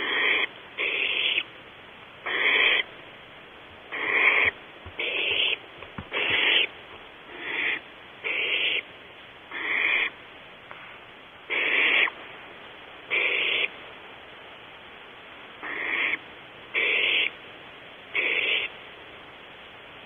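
Barn owl nestlings giving hissing begging calls. Each call is a harsh burst of about half a second, repeated every one to two seconds, about fourteen in all.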